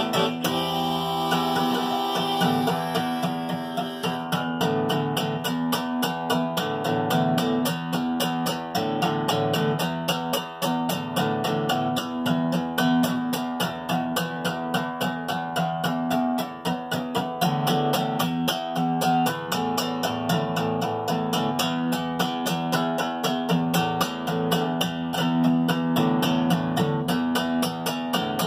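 Acoustic guitar strummed in a steady rhythm with a harmonica playing a melody over it, an instrumental break with no singing. The strumming settles into an even beat about four seconds in.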